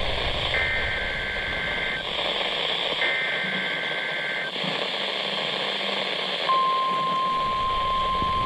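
NOAA Weather Radio broadcast over a hissy weather-radio receiver: two bursts of warbling two-tone SAME digital header data, each about a second and a half long, mark the start of an Emergency Alert System weekly test. About six and a half seconds in, the steady 1050 Hz warning alarm tone begins and keeps sounding.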